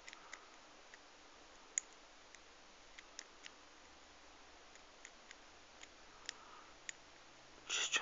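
Lock pick and tension wrench working inside a five-pin brass barrel padlock: faint, irregular small clicks and ticks as the pins are probed and set. A short, louder scraping burst comes near the end.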